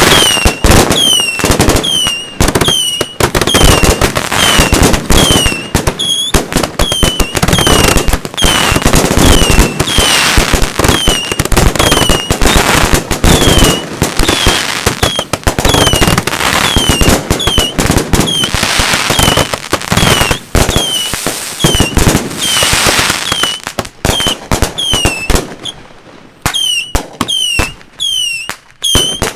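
Fireworks cakes firing a rapid barrage of bangs and crackle, with a short falling whistle about once a second. The barrage thins out near the end.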